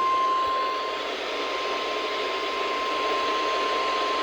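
NOAA Weather Radio warning alarm tone: a single steady high tone near 1050 Hz, held over radio static, signalling that a warning broadcast is about to follow.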